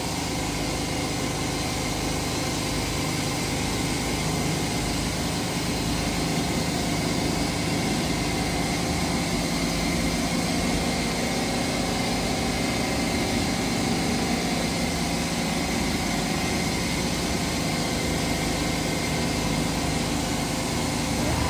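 CNC router running, giving a steady mechanical hum with several even tones.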